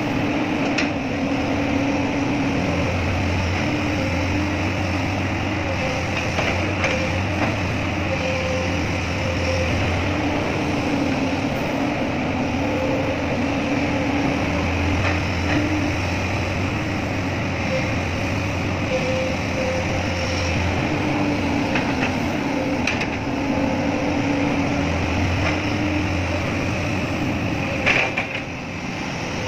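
Excavator's diesel engine running steadily, its low hum rising and easing as the load changes, with a few sharp metallic knocks and a louder clank near the end.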